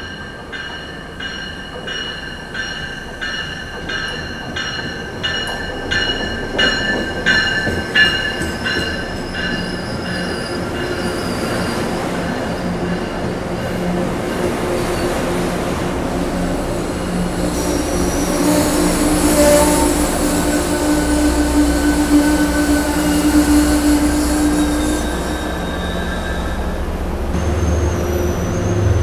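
A passenger train running on rails with its wheels squealing, getting louder as it comes closer. The high squeal pulses evenly at first, then turns steadier over a low rumble.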